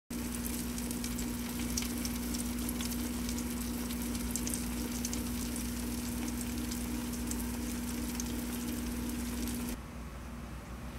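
Stuffed green bell peppers sizzling and crackling as they roast in a hot oven, over a steady electric hum. Both stop suddenly near the end, leaving a quieter hiss.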